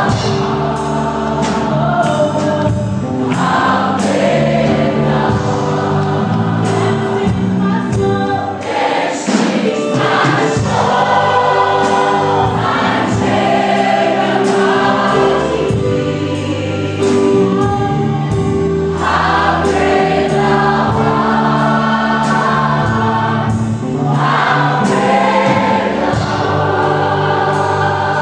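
A choir singing a gospel song, several voices holding sustained chords together.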